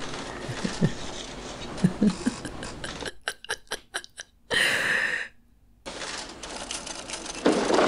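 A woman laughing: a quick run of giggles, about five a second, starting about three seconds in, then a louder, higher burst of laughter that cuts off suddenly.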